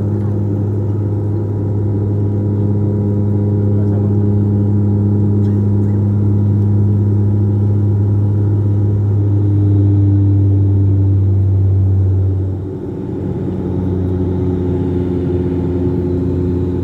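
Turboprop engines and propellers droning steadily, heard inside the passenger cabin, with a strong low hum and overtones. About two-thirds of the way in the drone dips briefly and settles at a slightly lower pitch.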